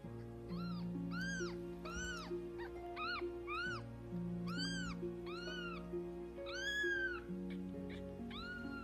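Very young kittens mewing: about ten short, high-pitched cries, roughly one a second, each rising and falling in pitch. Soft background music with long held notes plays underneath.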